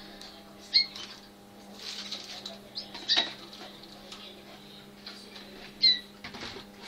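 Malinois (Waterslager) canaries giving short, sharp high calls three times: about a second in, at about three seconds and near six seconds. Between the calls come light scratching and fluttering, over a steady low hum.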